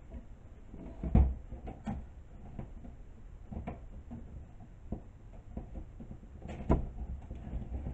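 Wooden clothespins clicking and rattling against a wire wreath frame as one is worked off the frame by hand. A scatter of small clicks, with two sharper knocks, one about a second in and one near the end.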